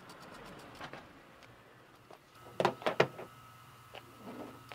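Light clicks and knocks of hand tools at the car battery as its terminal is reconnected: a faint rustle, then a cluster of two or three sharp clicks a little past halfway.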